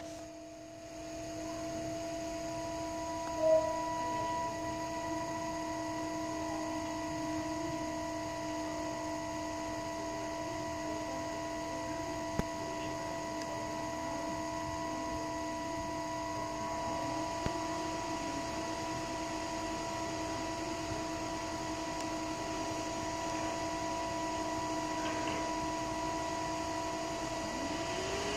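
Old computer fans spinning mirrors for a laser spirograph, running with a steady hum of several held tones, one of the higher tones growing stronger partway through. A short louder blip sounds about three and a half seconds in.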